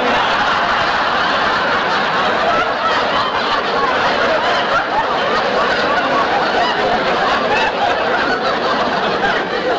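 A studio audience laughing in one long, loud laugh that holds steady and eases off only near the end.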